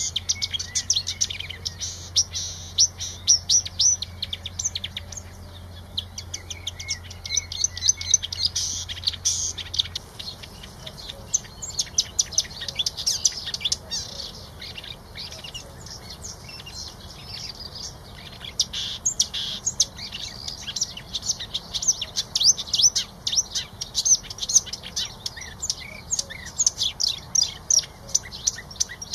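Small songbirds chirping and twittering in quick, dense runs of high-pitched notes.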